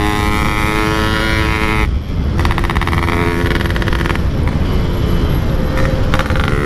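Yamaha RX-King 135cc single-cylinder two-stroke motorcycle running at steady high revs through a Packing Power exhaust while being ridden. The engine note breaks off briefly about two seconds in, then settles back to a steady pitch.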